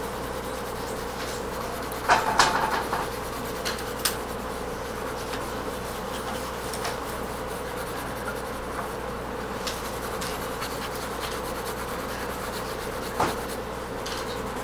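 Graphite pencil shading strokes rubbing on drawing paper, with a louder scratchy stretch about two seconds in. A steady hum runs underneath.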